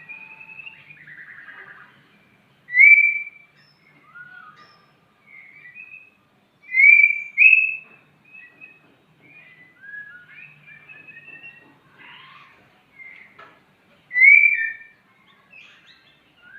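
White-rumped shama (murai batu) in breeding condition singing: three loud, clear whistled notes, with quieter varied warbles and chirps between them.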